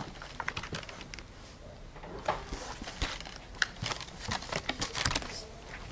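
Soft paper rustles and a few light taps as a large picture book is held up open, then lowered and its pages handled.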